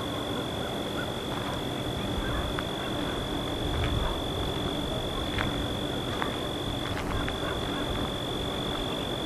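An insect trilling steadily on one high pitch, with a short break about seven seconds in, over a background hiss and a few faint scattered clicks.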